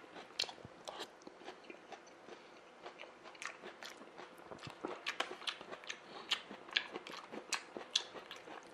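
A person chewing forkfuls of crisp salad vegetables, mostly lettuce, with many short, irregular crunches that come thicker in the second half.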